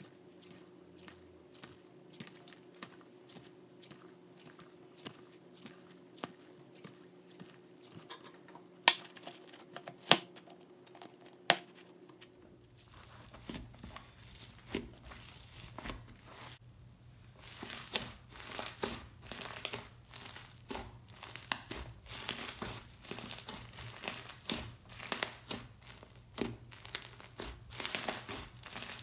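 Icy jelly hybrid slime made with clear glue, borax and instant snow powder being stretched, folded and squeezed. It gives crinkly crackling and small popping clicks as trapped air escapes. It is sparse and soft at first with three sharp pops, then turns dense and louder in the second half.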